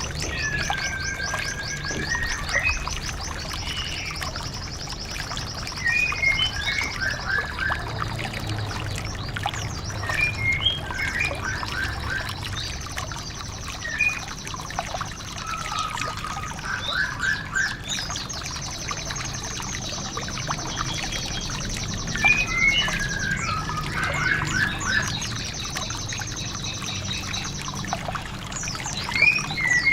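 White-eye (pleci) birdsong: long, fast, high trills alternating with short chirped phrases, over a steady low background rumble.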